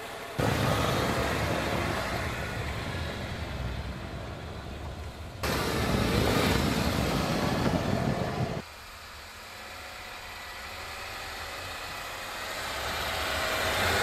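Jeep Wrangler driving through deep snow: the engine runs under load as the tyres push through the snow, loud and close for the first two-thirds with two abrupt jumps in level, then quieter and farther off, growing louder as the Jeep approaches near the end.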